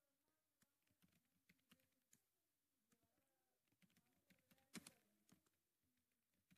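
Faint typing on a computer keyboard: irregular single keystrokes, with a few louder clicks about five seconds in.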